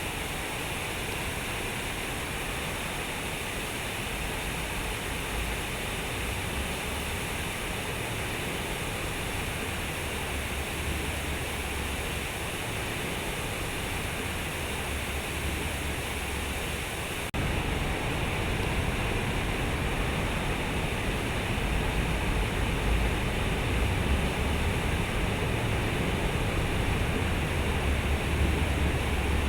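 Waterfall rushing steadily, a continuous wash of water noise with a deep low rumble. About two-thirds of the way through it abruptly becomes louder and heavier in the low end.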